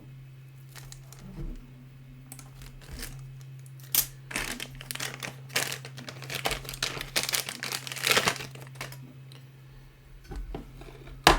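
Plastic packaging crinkling and rustling in irregular bursts as parts are unpacked, over a steady low hum, with a sharp click near the end.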